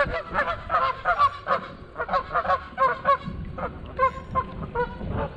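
Several geese honking, short calls overlapping and repeating a few times a second.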